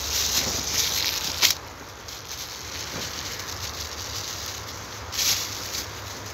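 A thin plastic bag, filled with soil, crinkling as a hand squeezes and wraps it around a tree branch. There is a sharp crackle about a second and a half in, and another short burst of crinkling about five seconds in.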